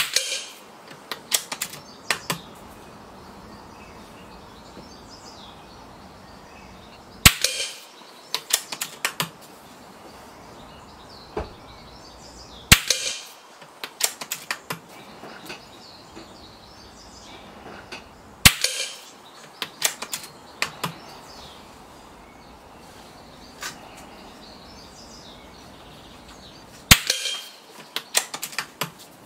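Daystate Huntsman Regal PCP air rifle firing five shots several seconds apart, each a sharp crack followed by a few quieter clicks.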